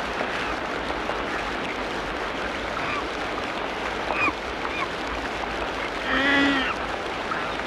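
Tropical rainforest ambience: a steady dense hiss of background wildlife, with a few short bird chirps in the middle and one loud, nasal, quacking animal call about six seconds in.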